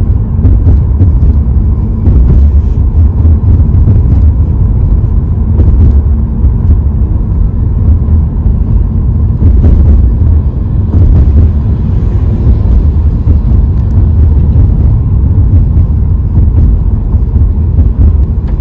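Car cabin noise while driving: a steady low rumble of road and engine heard from inside the car.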